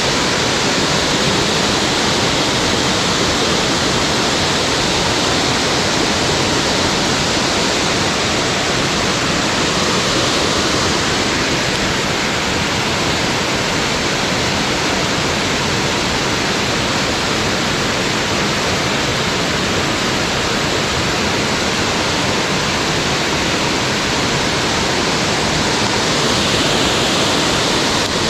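Waterfall rushing: a loud, steady wash of falling water with no breaks or changes.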